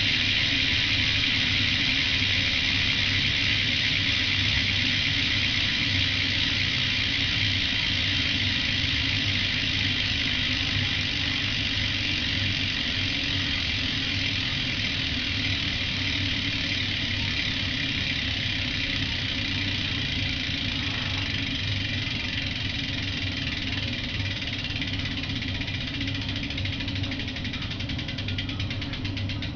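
Demolition Anorexia cassette rear hub freewheeling as the back wheel spins, its pawls ratcheting in a fast, continuous high buzz. The buzz slowly fades as the wheel coasts down, and near the end it slows into separate clicks.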